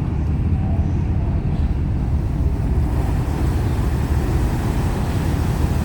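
Steady low rumble of a RORO ferry's engines running as the ship comes off the berth after its lines are let go. A broader rush of wind and churned water grows from about three seconds in.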